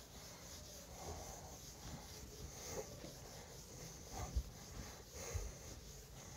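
Faint rubbing of a board duster wiping marker off a whiteboard, with a couple of soft bumps about four and five seconds in.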